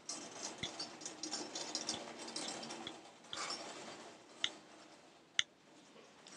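Silver teapots and jugs rattling and clinking against each other on a serving tray as it is carried, with two sharper ringing clinks a little after four seconds in and again a second later.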